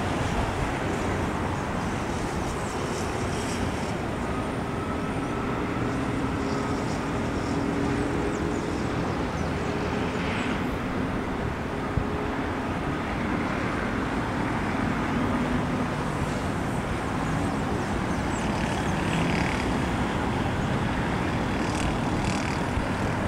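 Distant jet airliner engine noise: a steady rumble with faint tones that drift slowly in pitch, over a hiss of wind and background noise.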